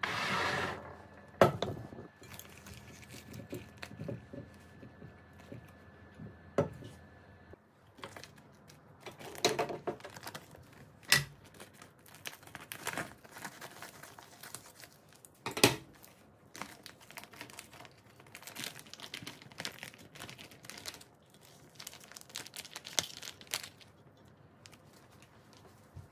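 Plastic vacuum-seal bag crinkling and rustling as it is handled and cut open with scissors, with a few sharp clicks.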